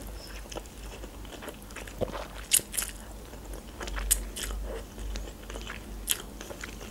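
Close-up mouth sounds of eating instant noodles from a fork: slurping them in and chewing, with a few short, sharp wet smacks.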